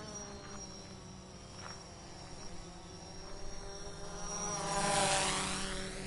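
A drone's propellers buzzing as it flies past. The steady buzz is fainter at first, then swells to its loudest about five seconds in as the drone passes close, and begins to fade.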